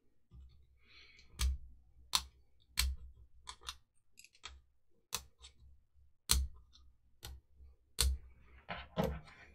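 Sharp, irregular clicks and knocks of the plastic housing of an opened GHD SS4 hair straightener being handled and pressed on a bench mat, with faint rustling between them.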